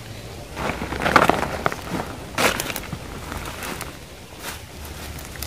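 Footsteps crunching and crackling through dry leaves, grass and bamboo stalks, loudest during the first half, then fainter scattered crackles.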